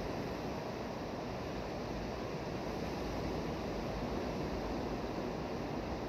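Ocean waves breaking offshore and washing up a shallow, rocky beach: a steady, even rush of surf.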